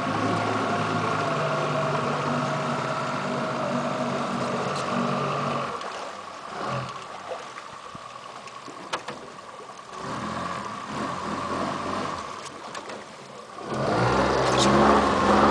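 Outboard motor pushing a small fishing boat at low speed, with a steady hum; it drops off about six seconds in and picks up again louder near the end as the boat is manoeuvred.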